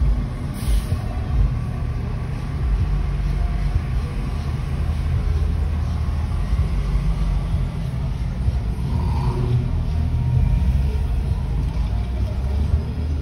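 Steady low rumble of car engine and road noise heard from inside a car's cabin as it creeps forward in slow traffic.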